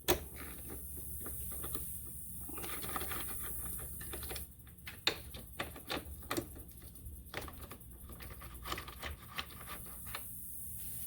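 Irregular light clicks, taps and rustling of hands handling plastic body panels and small parts of a motorcycle being taken apart.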